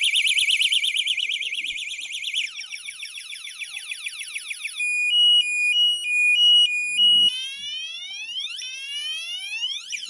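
Wireless bicycle anti-theft alarm sounding its loud electronic siren, which cycles through several patterns: a fast warble, then rapid chirps, then a high two-tone beep alternating about three times a second, then repeated rising whoops.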